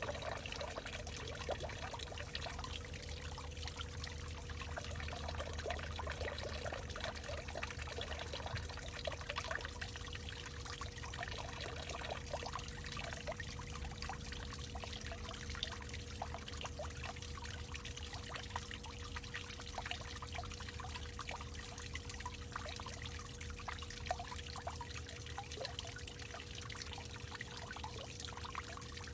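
Water trickling and splashing in a continuous, dense patter, with a faint steady tone and low hum underneath.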